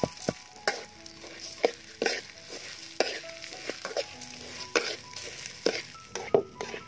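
Metal spatula stirring and scraping raw rice grains around a hot steel wok, with sharp scrapes and knocks against the pan about once a second over the rustle of the grains.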